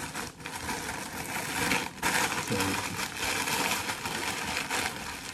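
Brown paper sandwich wrapper being folded over and crumpled into a ball by hand, a continuous crackling rustle.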